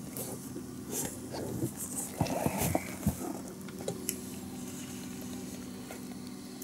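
Handling noises as a small pike caught on a trolled spoon is brought aboard: irregular rustling, clicking and a few sharp knocks in the first few seconds, then quieter, over a steady low hum.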